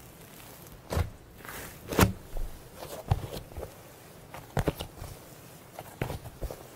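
Someone sniffing and snorting hard through the nose close to the microphone: short, sharp sniffs at irregular intervals, about eight of them, the loudest about two seconds in.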